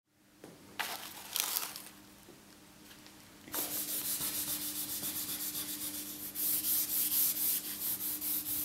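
A stick of charcoal scratching on drawing paper: two short strokes about a second in, then, from about three and a half seconds, quick back-and-forth shading strokes at about five a second, louder near the end. A faint steady hum lies underneath.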